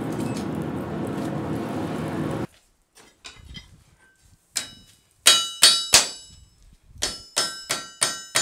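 A steady rush of air and fire from a bellows-blown charcoal forge cuts off suddenly. After a few faint taps, a hand hammer strikes glowing steel on an anvil in a quick series of ringing blows, two to three a second.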